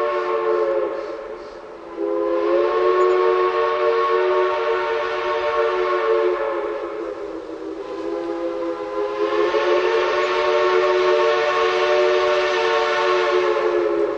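Train whistle sounding a chord of several tones in long blasts. One blast dies away about two seconds in, a second follows at once, and a third swells in near the middle with its pitch sliding up slightly as it opens, then holds.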